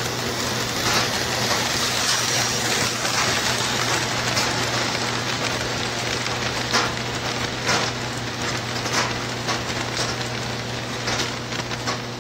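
Model train running past on its track: a steady rushing rattle of the locomotive and cars rolling on the rails over a steady low hum, with irregular clicks.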